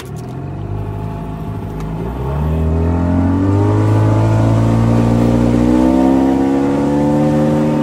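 15 hp outboard motor opened up to full throttle as the inflatable boat gets up on plane. The engine note climbs and grows louder about two seconds in, then holds high and steady, still creeping slowly upward.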